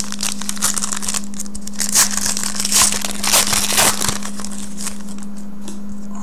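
Crinkling and tearing of a shiny foil trading-card pack wrapper as it is ripped open by hand. It is a dense crackle, busiest and loudest in the first four seconds, then it settles.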